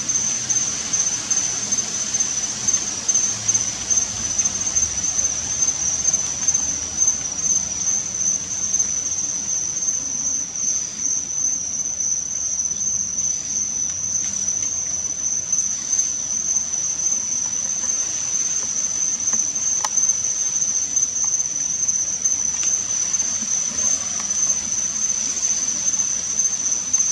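Crickets trilling in a continuous high-pitched chorus that holds steady throughout.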